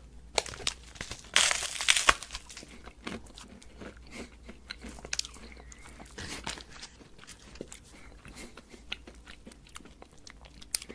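Close-miked biting and chewing of a crunchy, airy brown-sugar fugashi wheat bar. There is a loud burst of crunching bites between about one and two seconds in, then a long run of quieter crunchy chewing clicks.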